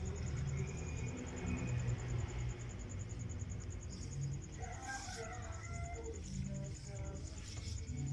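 Insects trilling in a fast, even, high pulse over a steady low rumble, with a few sharp clicks around five seconds in.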